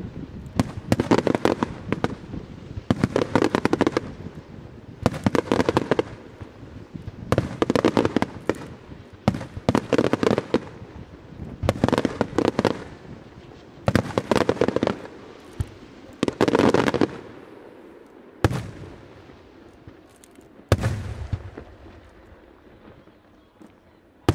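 Aerial fireworks display: volleys of shells bursting in dense crackling clusters of sharp reports, about one volley every two seconds. In the last several seconds it thins out to a few single sharp bangs.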